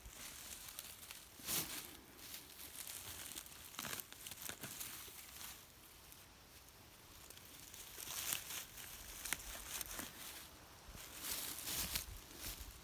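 Close rustling and crackling of moss and forest-floor undergrowth being handled, with scattered sharp snaps and crunches.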